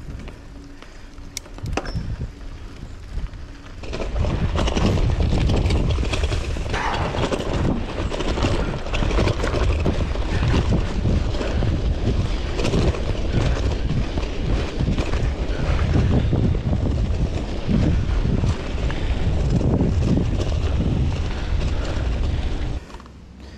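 Wind buffeting the microphone and mountain bike tyres rolling over a dirt trail. It is quieter with a few clicks for the first four seconds, then grows into a loud, steady rush during a fast descent and stops abruptly near the end.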